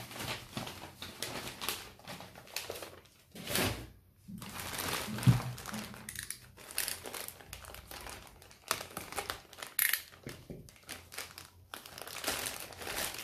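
Plastic courier mailer bag crinkling and rustling as it is handled and pulled open, in irregular bursts, with one sharp click about five seconds in.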